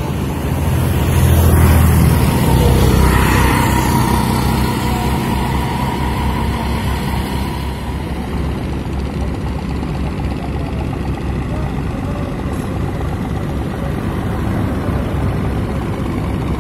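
Road traffic on a bridge: a heavy vehicle's engine is loudest about two seconds in and fades after several seconds, leaving a steady traffic din.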